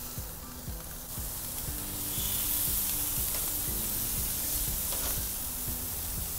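Whole squid marinated in olive oil sizzling on a hot grill.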